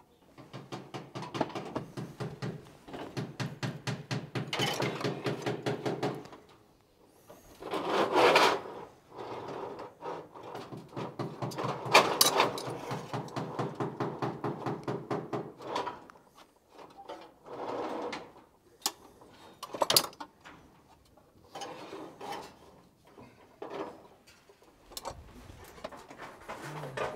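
Slater's hammer trimming a roof slate on the edge of a metal slater's stake, cutting it to shape: long runs of quick, sharp taps, several a second, broken by short pauses and a few harder single blows.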